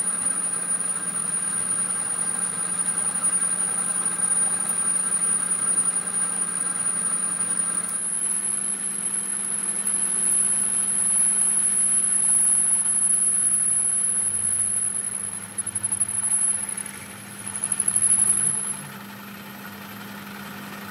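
Metal lathe turning a metal shaft part while the cutting tool takes a cut: a steady motor hum with a thin, high-pitched whine from the cut. Near the end the sound dips and swells twice.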